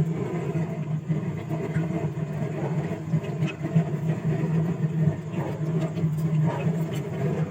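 A steady mechanical hum, like a machine or engine running at constant speed, with a few faint clicks over it.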